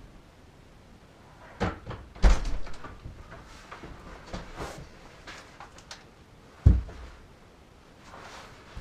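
A door being opened and handled, with clicks and knocks and two heavy thuds, one about two seconds in and one near the end.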